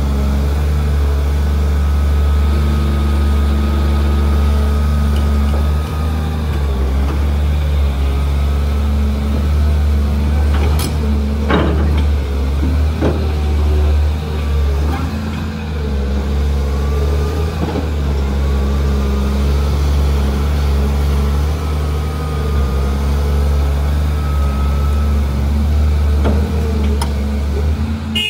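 Caterpillar 330D2 hydraulic excavator working: its diesel engine running steadily under load with a deep hum that dips and picks up as the boom and bucket move. A few sharp knocks near the middle and again near the end.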